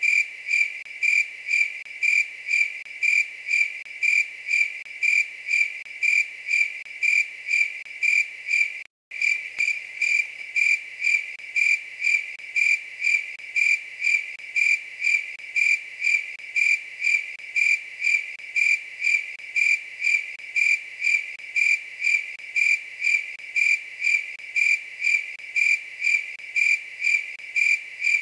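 A night-singing insect chirping in a steady rhythm, about two clear high-pitched chirps a second, with a brief cut-out about nine seconds in.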